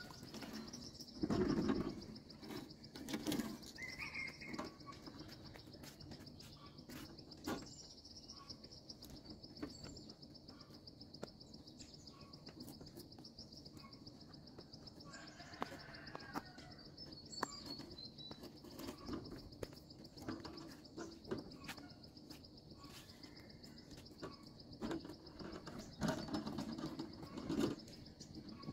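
A steady high insect trill with bird chirps now and then, over scattered knocks and thumps; the loudest thump comes about a second and a half in, and more come near the end.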